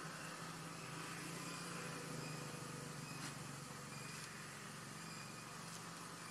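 A steady low hum with an even hiss over it, with one faint click about three seconds in.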